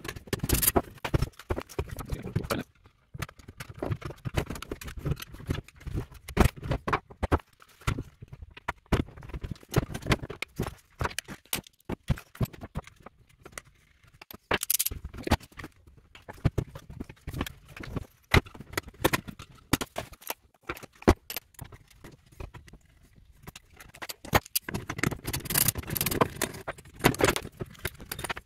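Plastic housing and small metal parts of a BYD Atto 3 battery contactor block being taken apart by hand on a wooden workbench: irregular clicks, knocks and scrapes as covers are unclipped and parts handled. The clatter comes in clusters, busiest at the start, around the middle and near the end.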